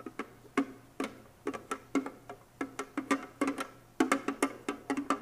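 Wooden spoon knocking and scraping against a clear plastic container while diced vegetables are scooped out of it into the pan. It gives a run of irregular hollow knocks, a few a second.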